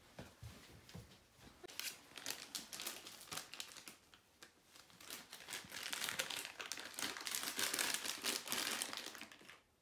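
Plastic snack packets crinkling and crackling as they are handled, getting louder and denser about halfway through.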